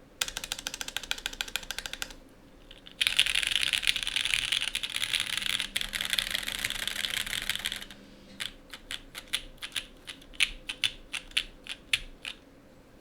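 Mechanical keyboard with lubed Gateron Lion linear switches in an aluminium plate and CRP R4 keycaps being typed on: a fast burst of keystrokes, a brief pause, a long run of very rapid typing, then slower, separate key presses about three or four a second.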